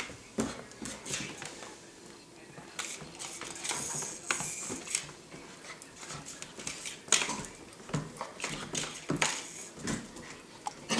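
Brittany spaniel puppy batting and mouthing a plastic toy bug on a hardwood floor: irregular clicks and clatters of the toy and claws against the boards, the loudest about seven seconds in.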